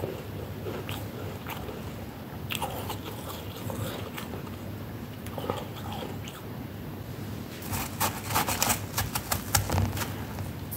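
Close-up crunching of a mouthful of flaky freezer frost being chewed, with scattered crisp crunches. Near the end a fast run of louder crackling crunches comes as a hand grabs and squeezes a handful of frost from the heaped plate.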